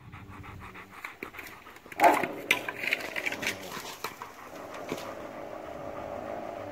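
German Shepherd dogs panting in quick rhythmic breaths during rough play, with a sudden loud vocal outburst about two seconds in.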